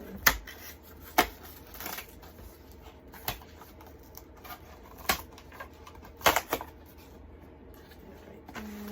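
Gingerbread house kit pieces and their packaging being handled and set down: a string of irregular sharp taps and clicks with light rustling between them.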